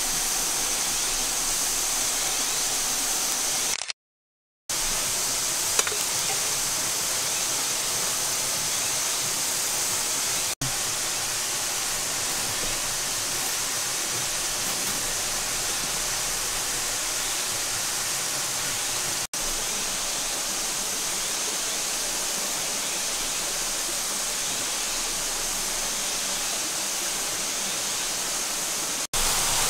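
Steady rushing of flowing water, even and unbroken. It cuts out completely for under a second about four seconds in, and dips briefly three more times.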